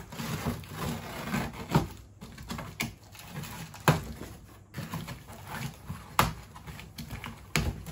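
Cardboard shipping box being opened with scissors: packing tape cut and torn, cardboard flaps scraping and rustling, with a few sharp knocks of cardboard and scissors.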